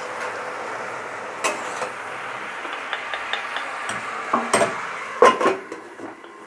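Metal spatula scraping and tapping against a steel kadai while spinach and fish heads sizzle in it, then loud clanks of a steel lid being set on the pan about five seconds in.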